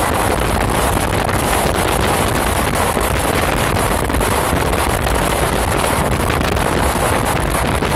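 Steady rush of wind buffeting the microphone at an open window of a moving passenger train, over the low rumble of the train running.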